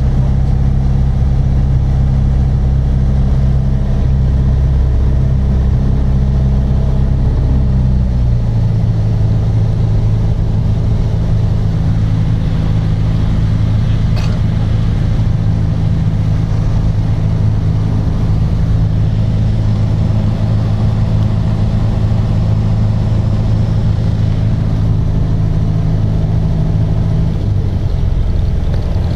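Light aircraft's engine and propeller droning steadily, heard from inside the cockpit. The engine note shifts to a different pitch about eight seconds in and changes again near the end.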